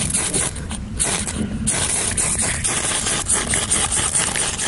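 Spine of a Mora Companion knife scraped repeatedly and fast down a ferrocerium rod, throwing sparks onto paraffin-soaked cardboard shavings to light a fire; a rasping scrape with a brief pause about a second in.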